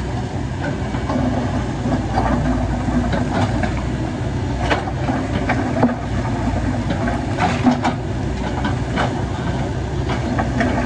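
Heavy diesel earthmoving machinery running steadily, with several sharp metallic clanks and knocks through the middle and second half.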